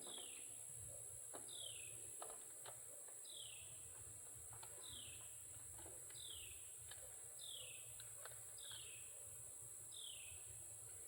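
A bird repeating a short note that falls in pitch, about once a second, over a steady high-pitched insect drone, with a few faint knocks.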